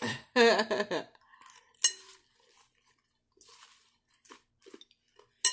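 Metal fork clinking sharply against a glass salad bowl three times while salad is picked up, with faint crunchy chewing in between. A short voiced sound comes about half a second in.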